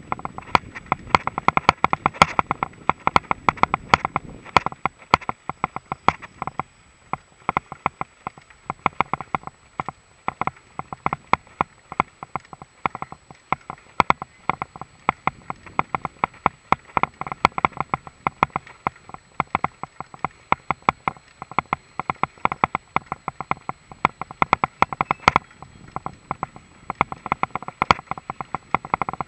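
Mountain bike, a Mongoose XC Salvo Comp full-suspension, rattling over a bumpy dirt-and-grass trail: a dense, irregular stream of sharp clicks and knocks from the bike and its mount, with a low tyre rumble in the first few seconds.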